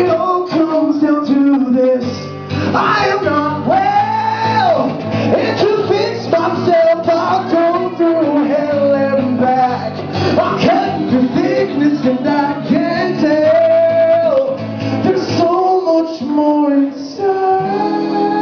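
Live acoustic guitar with a male voice singing long, sliding vocal lines without clear words.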